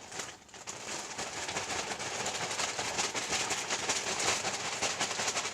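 Plastic bag rustling and crinkling as squishies are pulled out of it, a dense crackle that builds over the first couple of seconds and stops abruptly at the end.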